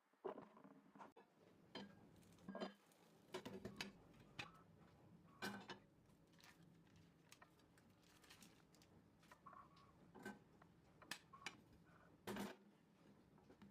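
Faint, irregular light clicks and knocks, about a dozen, from kitchenware being handled.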